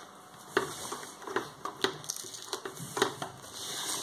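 Hands handling the plastic-wrapped lid of a new Samsung top-loading washing machine: light knocks and clicks at irregular intervals, with a soft rustle near the end.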